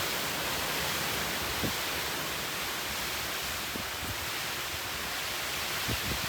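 Storm wind rushing through a tree's leaves in a steady loud hiss.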